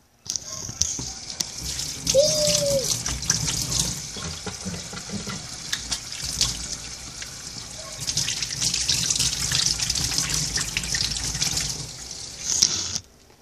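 Water running from a sink tap and splashing over hands being washed, louder and choppier while the hands are under the stream; the tap is turned off near the end and the flow cuts off suddenly.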